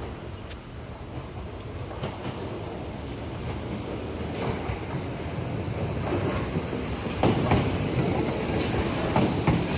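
Kintetsu 8400 series electric train arriving and passing close by, growing steadily louder as it nears. In the second half its wheels clack over the rail joints over a rushing running noise.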